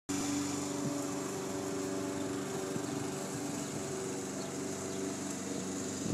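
Walk-behind lawn mower's small engine running steadily as it is pushed across the grass, cutting.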